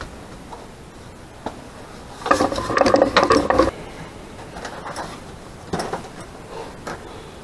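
Plastic driver-bit case being handled and opened, with clicks and a louder clatter of bits and plastic lasting about a second and a half, about two seconds in.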